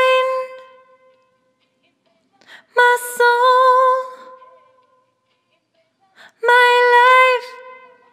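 A woman's voice singing three short held phrases, 'my mind', 'my soul', 'my life', with no backing, each note wavering slightly and dying away into near silence before the next.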